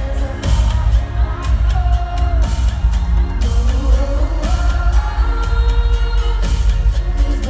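Live pop music heard from within the concert crowd: a female singer holding and sliding between sung notes over heavy bass and a steady electronic beat.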